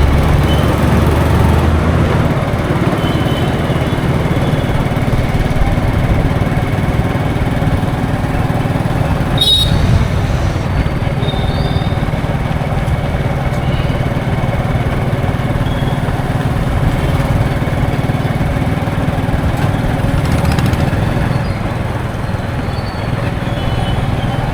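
Passenger bus engine running steadily with road noise, a low hum that changes little. There is one sharp click or knock about ten seconds in.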